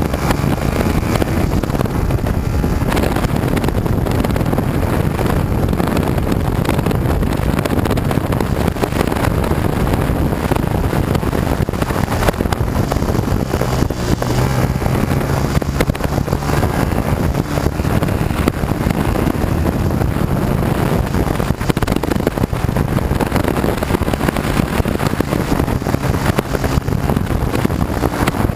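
Yamaha YZF-R125's single-cylinder four-stroke engine running while the bike is ridden, with heavy wind noise buffeting the onboard camera's microphone. The engine note shifts up and down in pitch as the road speed changes.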